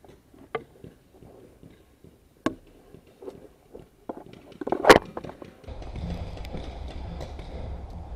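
A few separate sharp cracks of paintball markers firing, the loudest about five seconds in, then a steady low rumble takes over about halfway through.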